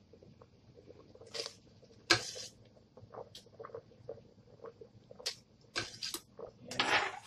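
Chopped peppers, onion and celery being tipped by hand into a pot of boiling chicken broth: irregular scrapes, patters and small splashes, the sharpest about two seconds in and a longer rustling scrape near the end.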